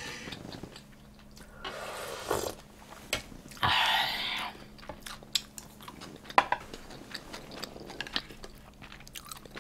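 A person chewing food close to the microphone, with soft wet mouth clicks throughout and two short rushing noises, about two and four seconds in.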